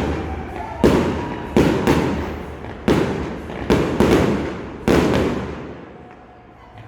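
Fireworks bursting overhead: about seven loud bangs in five seconds, each trailing off in an echo, then dying away near the end.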